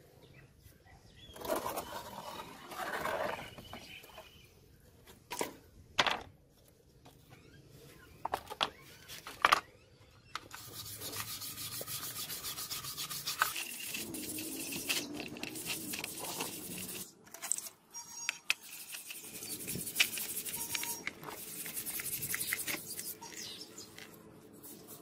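Brass wire brush scrubbing a wet steel knife blade on a plastic tray in quick strokes, starting about ten seconds in with short pauses. Before that, a few sharp knocks as the blade is handled and set down.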